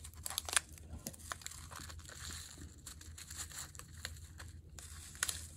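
A small plastic pouch crinkling as it is squeezed and tipped, with scattered light clicks of tiny toy pebbles dropping into a miniature pot.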